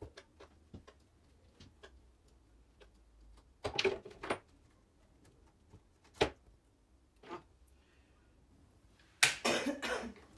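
Irregular clicks and clatter of small hand tools against the plastic and metal parts of an RC truck's front suspension, with a short burst of knocks about four seconds in and a louder rattle near the end.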